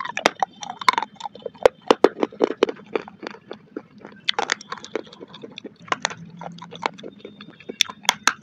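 Chunks of baked clay pot being bitten and chewed: dense, irregular sharp crunches and cracks, with a bite near the start and another near the end.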